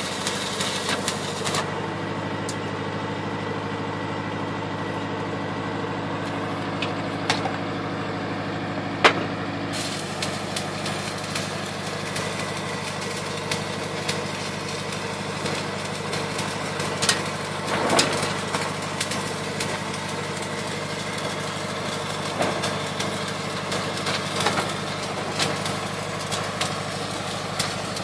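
Flux-cored arc welding on a steel pipe repair sleeve: the arc crackles and hisses with scattered sharp pops, over an engine running steadily underneath. The crackle thins for several seconds near the start, then picks up again.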